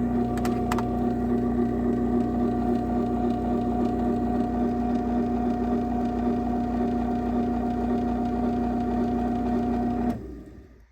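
Craftsman chain-drive garage door opener running steadily as it closes the door, a constant motor hum. It stops about ten seconds in and winds down briefly.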